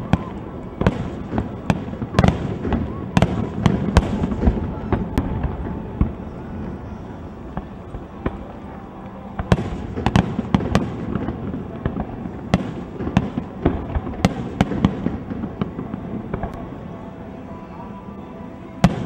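Fireworks display: aerial shells bursting in rapid runs of sharp bangs and crackles, in two heavy clusters, with quieter stretches around six to nine seconds in and again near the end before a fresh burst.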